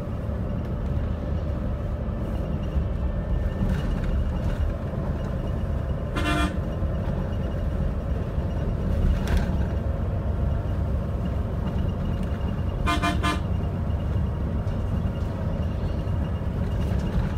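Steady low rumble of a bus heard from inside its passenger cabin, with a short vehicle horn toot about six seconds in and a quick double toot about thirteen seconds in.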